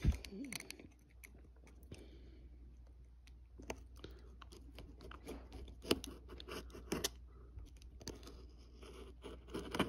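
Rubber sole of a Scarpa F1 ski boot being cut across by hand, heard as a few scattered crunching cuts with quiet stretches between.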